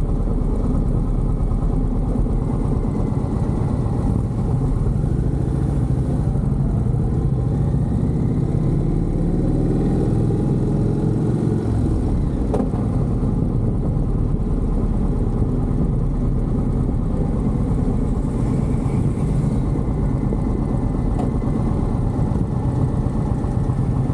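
Indian cruiser motorcycle's engine running steadily while riding along a street, mixed with wind and road noise.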